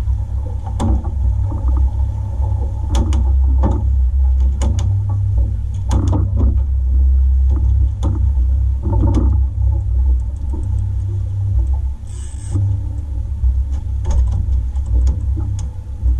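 Steady low rumble aboard an aluminum fishing boat, with scattered knocks and clicks of rods and gear being handled on deck and a short hiss about twelve seconds in.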